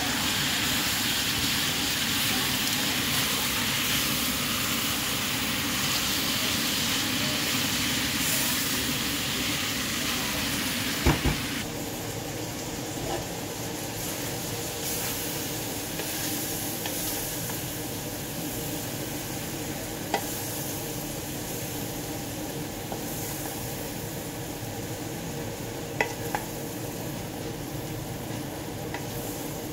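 Beef and vegetable stir-fry sizzling in a frying pan while it is stirred. About 11 seconds in there is a knock and the sizzle drops as the pan is lifted off the gas hob. Then a few short clinks of the spoon come as the food is served onto plates.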